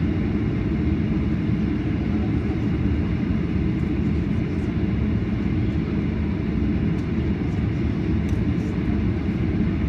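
Steady low rumble inside the cabin of a Boeing 737 standing still on the ground with its engines running, heard from a window seat.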